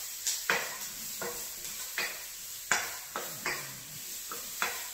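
Stir-fry vegetables and mushrooms sizzling in a hot wok, with a wooden spoon scraping and knocking against the pan as they are stirred: a steady sizzle under sharp strokes at uneven intervals.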